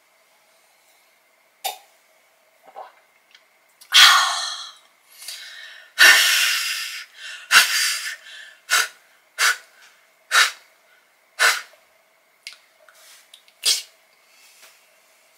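A woman's sharp, breathy non-speech vocal bursts: two long loud ones, then a string of about eight short ones, roughly a second apart.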